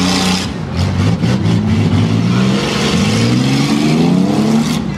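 Demolition derby cars' engines revving hard, their pitch rising and falling over and over, with more than one engine running at once, over a steady hiss.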